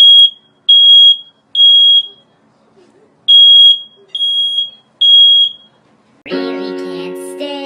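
Smoke alarm beeping in the three-beep pattern: three loud, high half-second beeps, a pause, then three more, the pattern of a fire evacuation signal. Near the end a singing voice with music comes in.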